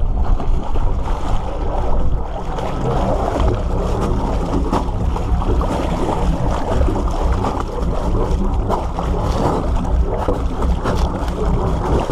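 Water splashing and churning against a boat hull as a hooked shark thrashes at the surface, heard muffled, with a steady low rumble of wind on the microphone.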